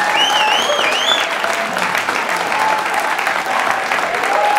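Audience applauding steadily, with a wavering whistle riding over it for about a second near the start.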